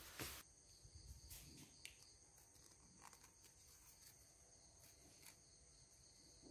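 Near silence: faint steady high-pitched chirring of crickets, with a short knock at the start and a few faint clicks as metal engine parts are handled while the cylinder is fitted.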